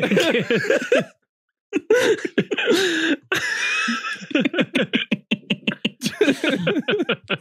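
Men laughing hard into podcast microphones in rapid, breathy bursts, with a brief complete dropout to silence about a second in.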